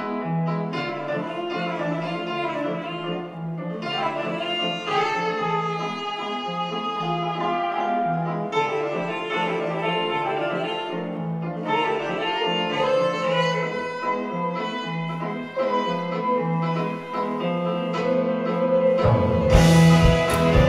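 Live jazz-funk band playing: a quiet passage of sustained melodic lines over a held low note, then the full band with drums comes in loudly about nineteen seconds in.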